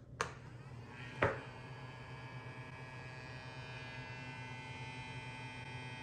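A click as a cheap robot vacuum is switched on and a knock about a second in, then its small electric motor runs with a steady buzzing hum of several tones.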